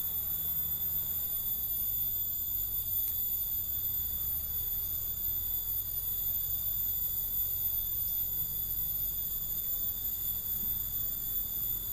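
Steady high-pitched drone of insects, several pitches held without a break, over a low rumble.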